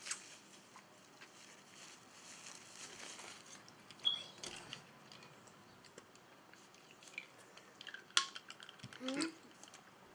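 Light handling sounds at a table: scattered small clicks and taps of a soda can and a paper napkin as a child drinks from the can, with a brief high squeak about four seconds in and a sharper click near the end.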